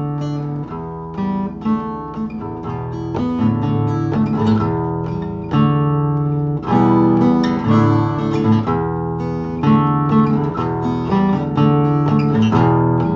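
Acoustic guitar playing chords, a steady run of plucked and strummed notes forming the instrumental introduction to a song.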